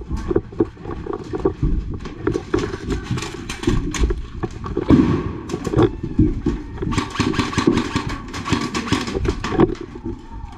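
Footsteps on a wooden plank floor and gear knocking against the walls, many irregular knocks and clicks over a low rumble of movement noise on a head-mounted camera's microphone. The knocks come thickest near the end.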